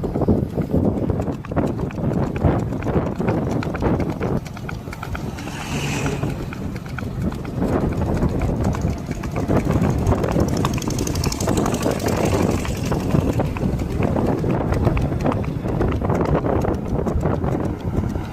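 Horse's hooves clip-clopping steadily, a continuous run of hoofbeats.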